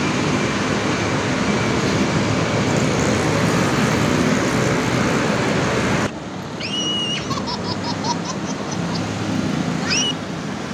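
Steady road traffic noise that cuts off suddenly about six seconds in. Then comes a quieter stretch with a few short high chirps and a quick run of ticks.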